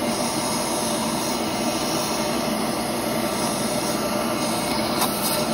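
Vacuum cleaner running steadily, a drinking straw duct-taped to its nozzle, sucking sludge out of an engine's intake ports.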